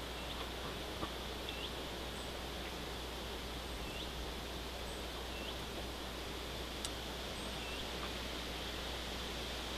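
Steady outdoor background hiss with faint, short, high bird chirps every second or so, and a couple of light clicks.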